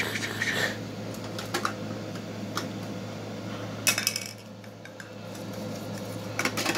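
Hard plastic toy garbage truck being handled: scattered single clicks, then a quick cluster of plastic clacks about four seconds in and another near the end, over a steady low hum.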